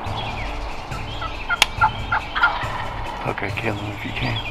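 Wild turkeys calling: a scattering of short, clipped notes, thickest in the middle, with one sharp click about a second and a half in.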